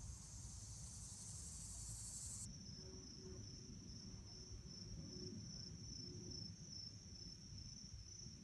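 Insects chirring: a dense high buzz that changes abruptly about two and a half seconds in to a steady, evenly pulsing high trill, over a faint low rumble.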